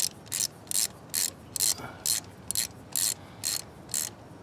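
Ratchet wrench clicking in short, evenly repeated strokes, about two a second, as a spark plug is run down into the cylinder head of a 2013 Lexus ES 300h.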